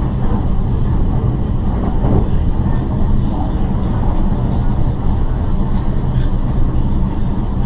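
MTR East Rail electric train running at about 100 km/h, heard from inside the carriage: a steady, loud low rumble of wheels on track.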